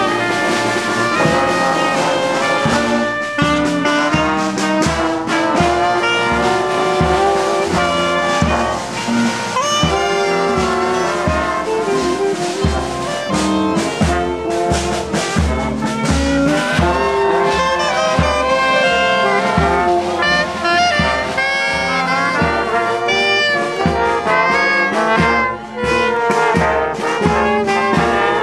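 A marching brass band of saxophones, trumpets, trombones and a sousaphone playing a march together over a steady low beat.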